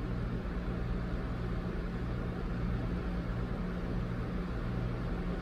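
Steady low hum with an even hiss: background room noise, with no distinct events.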